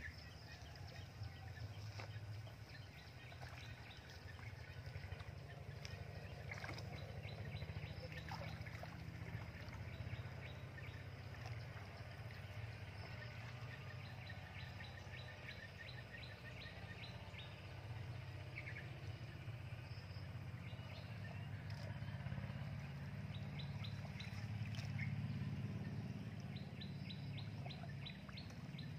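Water sloshing softly as a person wades waist-deep through a pond, over a low steady rumble. Quick runs of short high chirps come twice, once around the middle and again near the end.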